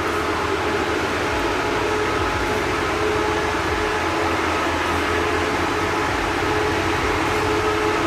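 Steady mechanical hum with a few held tones over an even hiss, unchanging throughout.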